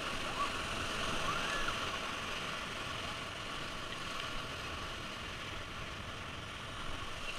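Steady rush of whitewater rapids around an inflatable raft, heard from on board.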